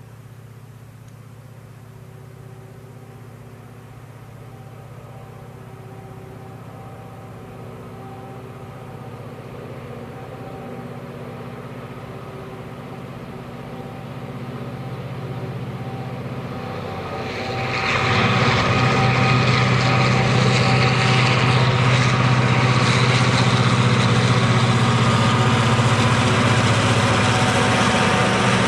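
Diesel-hauled freight train passing. A low, steady locomotive engine drone grows louder as it approaches, then about 18 seconds in it turns suddenly into the much louder, steady rush of the train going by, with the engine drone still under it.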